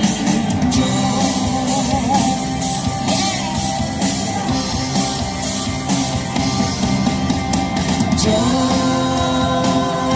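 Music: a song with singing over a full band backing, playing loudly and without a break.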